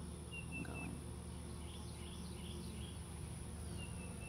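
Steady hum of a honey bee colony from an open hive, with a few short bird chirps about half a second in and near the end.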